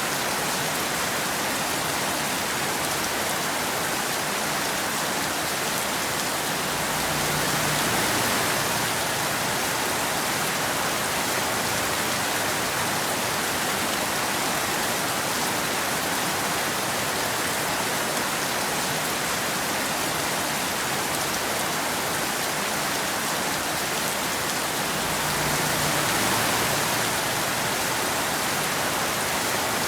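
Steady rain falling, an even hiss that swells slightly twice, about a quarter of the way in and near the end.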